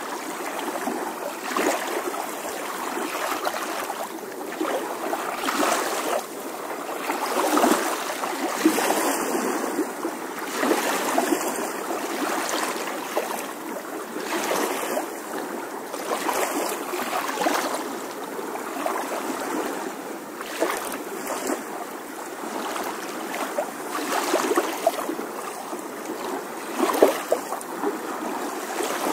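A steady rushing noise like running water, swelling and easing irregularly, with no voice or music.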